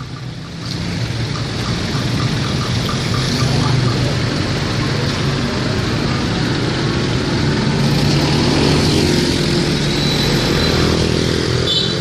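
A large diesel bus engine running in slow, congested traffic, with steady road noise around it and a light regular ticking over the first few seconds.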